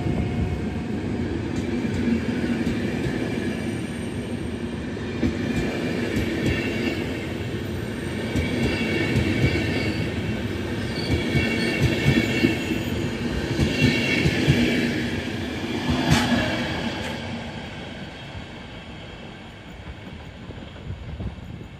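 PKP Intercity passenger coaches rolling past at the platform: a steady rumble of wheels on rail with knocks over the rail joints. High wheel squeal comes and goes through the middle. The noise fades near the end as the last coach pulls away.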